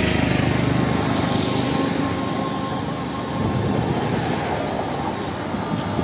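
Road traffic on a wet highway: cars and a motor scooter going by, a steady, noisy rumble.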